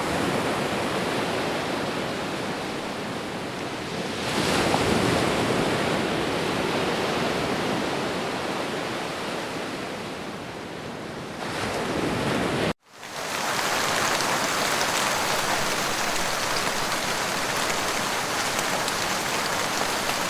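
Steady rushing noise of storm water, with flood water and rain running together. It swells about four seconds in, cuts out for an instant about thirteen seconds in, and resumes as a steady, brighter hiss.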